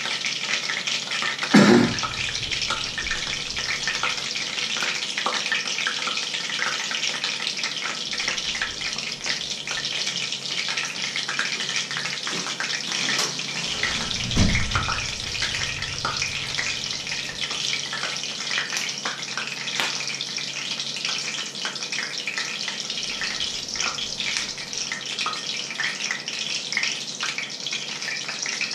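Water boiling hard in pots on an electric stovetop: a steady hiss with fine crackling. Two knocks stand out, a sharp one about a second and a half in and a duller one near the middle.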